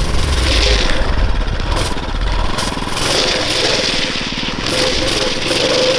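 Small single-cylinder Tillotson 212 engine on a drift trike running, its pitch wavering and then holding steady in the second half.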